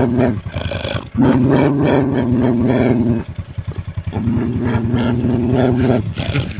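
A fierce dog growling in long, rough bouts of about two seconds each, with short breaks between them.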